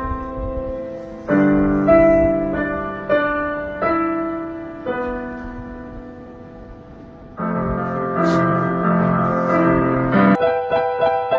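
Piano music: single notes and chords struck and left to ring and fade, with a loud chord about a second in and another a little past halfway.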